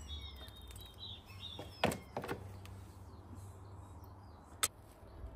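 Sharp knocks of pieces of a cracked, crumbling glazed ceramic plant pot being broken away and set down on concrete: two close together about two seconds in and one more near the end. Birds chirp during the first second or so.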